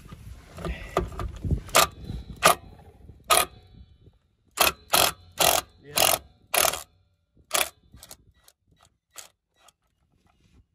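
AEG cordless impact wrench hammering in a series of short bursts, about a dozen, on a plug in a Land Rover Discovery 1 differential housing, trying to crack it loose. The last few bursts near the end are fainter.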